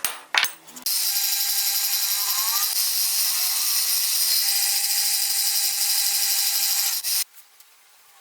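A power tool running at speed on workpiece material for about six seconds, a loud high-pitched whine with a rough cutting hiss, which stops abruptly. Two sharp knocks come just before it starts.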